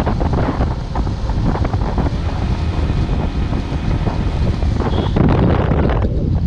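Wind buffeting the microphone over the low rumble of a moving vehicle as the camera rides along a road. It gets louder about five seconds in.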